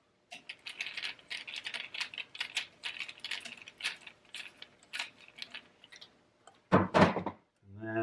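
Screwdriver turning the ground screw on an old electrical outlet: a quick, irregular run of light metallic clicks and scrapes, then one louder knock near the end.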